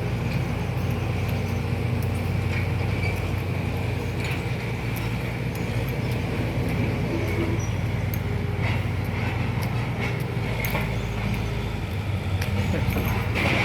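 A heavy engine running steadily with a constant low drone, with scattered faint clicks over it.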